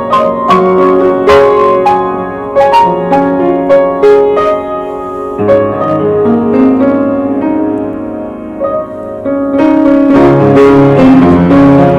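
Piano being played: single notes and chords ringing on, softer through the middle and louder again for the last few seconds.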